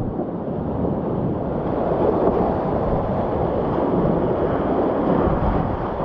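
Rushing whitewater of a mountain creek, a steady loud noise from the rapid the kayak is running, with low buffeting on the microphone.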